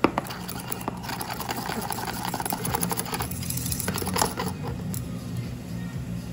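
A small wire whisk beating fast against the inside of a stainless steel milk pitcher as matcha powder is whisked into milk, rapid metallic clinking, followed by a spoon stirring in the pitcher; the clinking stops about five seconds in.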